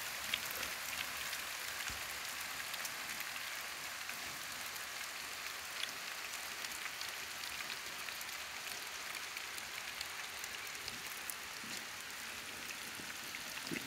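Heavy rain falling on forest trees and foliage: a steady, even hiss with scattered drop ticks.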